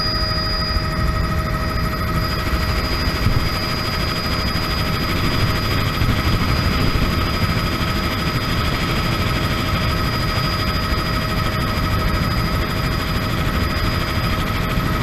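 Bell 206B3 JetRanger in flight, heard from inside the cabin: the steady whine of its Allison 250 turboshaft engine over the low, even rumble of the main rotor and airframe.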